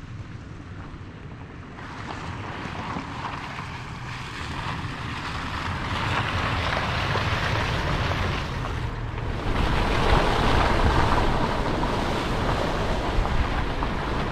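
A vehicle moving on a rough gravel road: tyre and wind noise over a low engine rumble, growing louder through the first ten seconds or so and then holding steady.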